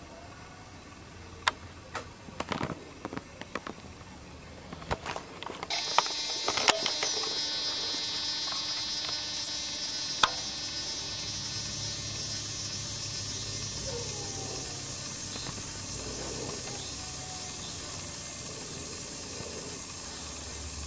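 A few sharp clicks and knocks, then a steady high-pitched hiss that starts abruptly about six seconds in and holds evenly to the end.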